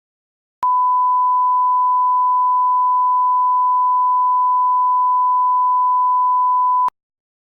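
A steady 1 kHz reference test tone, one pure beep held for about six seconds, starting and cutting off abruptly.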